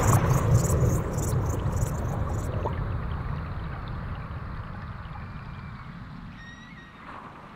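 Nature soundscape: a wash of running water fading steadily. Insects chirp in a steady pulse of about four a second that stops about two and a half seconds in. Faint bird calls come near the end.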